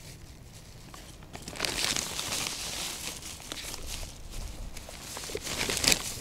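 Plastic carrier bags crinkling and rustling as hands dig into them and press groundbait onto a spring feeder. It swells about a second and a half in and is loudest in a short burst near the end.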